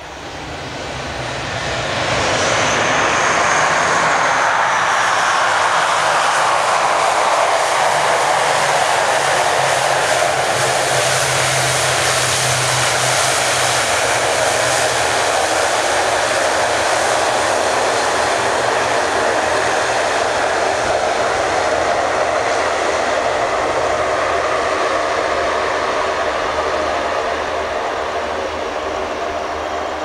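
ATR 72-500's twin Pratt & Whitney PW127 turboprop engines and propellers, loud as the aircraft comes in to land and rolls past on the runway. The sound swells over the first two seconds, with a high whine sweeping down about two to five seconds in over a steady low drone, and eases slightly near the end.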